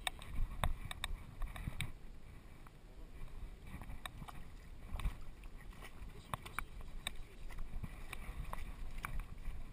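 A dog wading and splashing through shallow river water, heard from a GoPro strapped to its back, with irregular sharp clicks and knocks and a low rumble of wind and jostling on the microphone.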